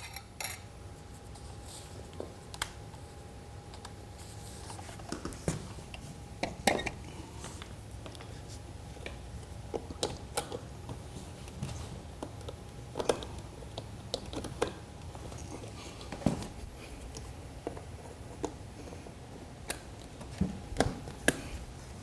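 Handling noises while power-tool gear is being set up: scattered light clicks, taps and knocks over a faint steady hum. Neither the grinder nor the vacuum cleaner is running.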